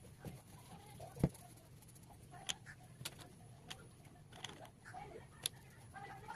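A few sharp taps and clicks, the loudest just over a second in, over faint background bird calls.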